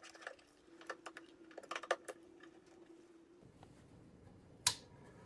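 Light plastic clicks and taps from handling a 3D printer's touchscreen display on its stand in the first two seconds, then a single sharp click near the end as the printer's red power switch is flipped on.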